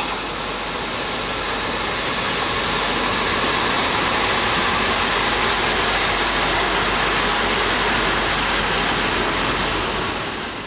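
Swedish T44 diesel-electric locomotive passing at close range with its train of freight wagons, the engine running and the wheels rolling over the rails. The noise swells to its loudest midway and falls away near the end.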